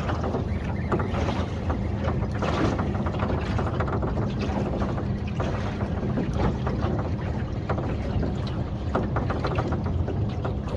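Fishing boat's engine running steadily at trolling speed, a constant low hum, with wind buffeting the microphone.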